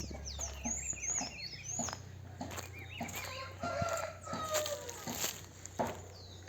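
A rooster crowing once, about three and a half seconds in, over repeated high chirps of small birds, with scattered clicks.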